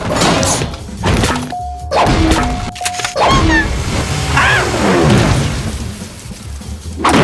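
Cartoon slapstick sound effects over music: a series of whacks and crashes, with sliding tones that rise and fall near the middle and a last loud hit near the end.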